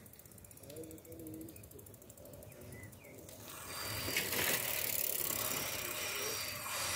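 Bicycle freewheel hubs ticking quickly and evenly as cyclists coast past. About three and a half seconds in, a louder, steady rush of noise rises and holds.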